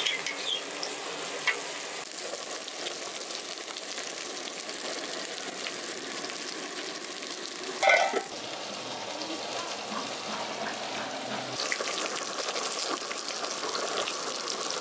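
Boneless chicken pieces sizzling in oil on a flat iron tawa griddle while being stirred and turned with tongs. A brief louder sound comes about halfway through, and the sizzle grows louder over the last few seconds.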